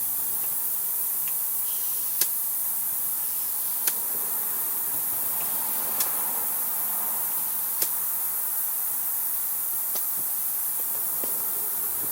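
Compressed air hissing steadily through an air hose chuck into a snowblower tire's inner tube, inflating it toward 20 PSI, with a sharp click about every two seconds.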